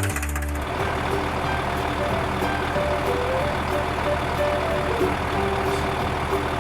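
Truck engine running steadily, a low even hum.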